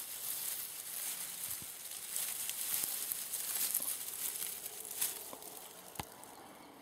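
Wheat stalks and ears rustling and crackling as a hand parts and grips them, with a sharp click about six seconds in; the rustling dies down near the end.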